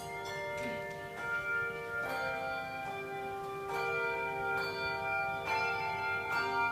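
Handbells playing a slow tune: a note struck about every second, each ringing on and overlapping the next.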